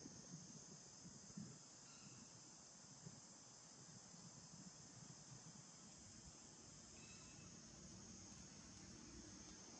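Near silence with a faint, steady high-pitched drone of insects chirring in the background.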